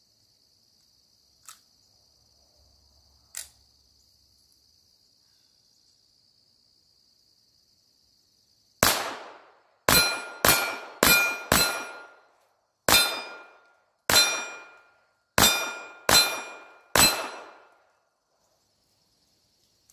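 Ruger Mk IV 22/45 Tactical .22 LR pistol fired ten times at an uneven pace, starting about nine seconds in. After most shots comes a short ringing ping from the steel plate targets being hit. Before the shooting, crickets chirp steadily and there are two faint clicks.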